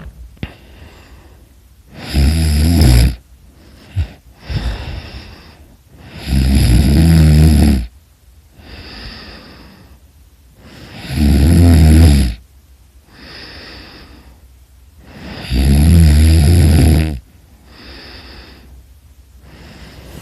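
A person snoring loudly: four loud snores about four and a half seconds apart, each a second or so long, with quieter breaths between them.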